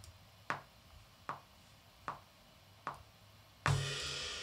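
Recording count-in: four evenly spaced metronome clicks a little under a second apart, then near the end the programmed drum track comes in loud with a crash cymbal and kick, joined by a low bass guitar note.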